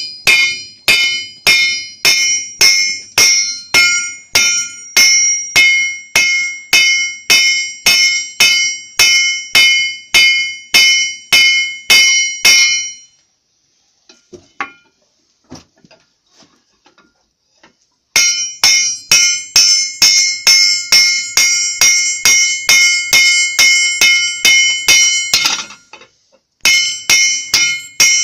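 Hand hammer striking a steel ploughshare on an anvil at about two blows a second, each blow ringing bright and metallic as the blade is forged. The hammering stops for about five seconds a little before halfway, resumes, and breaks briefly again near the end.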